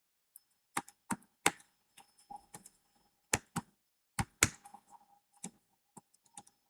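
Typing on a computer keyboard: irregular single keystroke clicks, some quick pairs, spread unevenly over several seconds.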